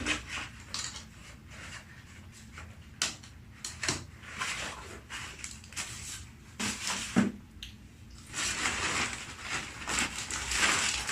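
Packaging being handled: scattered clicks and knocks, then a longer stretch of crinkling and rustling from about eight seconds in as the next parcel is opened.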